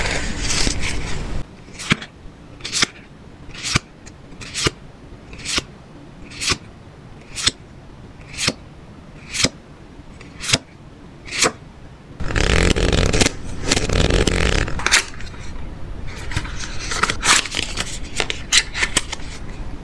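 Playing cards being handled: a sharp card snap about once a second as cards are pulled off the deck one at a time, then a few seconds of louder scraping and rustling of the deck. Near the end come scattered light clicks and rustling from the cardboard tuck box.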